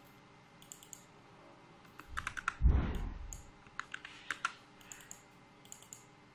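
Computer keyboard keys and mouse buttons clicking in short irregular runs as settings are entered into engraving software. One dull, low thump, the loudest sound, comes about two and a half seconds in.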